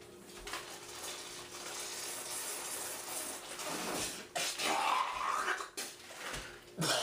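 A man sputtering on a mouthful of fizzing baking soda and vinegar foam, with a steady hiss. About four seconds in it turns into louder, choppy gagging and spitting as the foam spills out.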